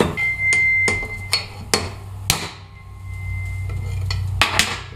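Hammer striking a steel drift to drive a bearing race out of a full-floating axle hub, a series of sharp, ringing metal-on-metal blows. The blows come several in the first two and a half seconds, pause, then come again near the end.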